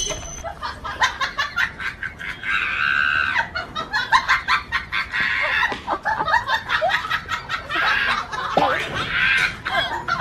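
Chickens squawking and clucking in a scuffle with a dog, with many quick knocks and scuffling noises. Two longer squawks come about two and a half seconds in and again near the end.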